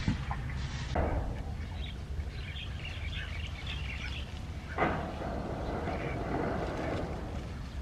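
Small birds chirping faintly over a steady rural background. About five seconds in, leafy water spinach stems rustle as they are lifted out of a wicker basket.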